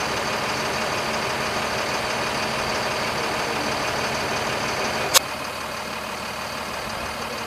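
Diesel engine of a military-style high-water truck idling steadily. A single sharp click comes a little past halfway, after which the engine sounds slightly quieter.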